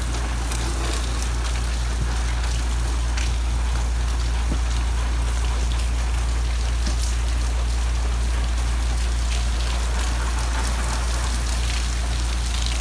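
Steady rain falling outside, an even hiss with scattered drops ticking, over a steady low hum.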